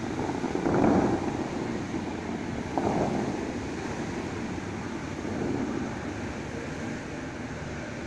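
Water jets of the Dubai Fountain rushing and splashing in a steady noisy wash. It swells louder about a second in, again near three seconds and more softly after five.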